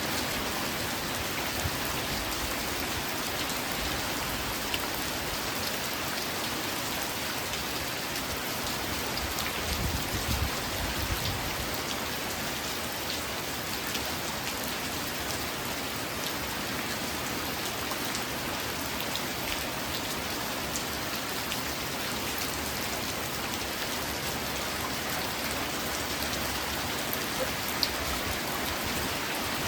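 Steady rain falling: an even hiss with individual drops ticking through it, and a brief low rumble about ten seconds in.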